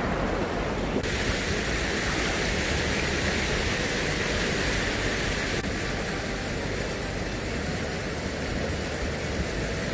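Steady rushing noise of shallow sea water washing and foaming around a wader, growing brighter about a second in.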